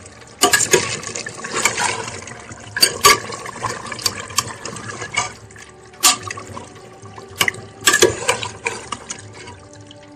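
Mutton pieces sizzling in oil in an open pressure cooker while being stirred, with a metal spoon clinking and scraping against the pot's sides at irregular intervals. This is the frying (bhuna) stage after the meat has been pressure-cooked tender.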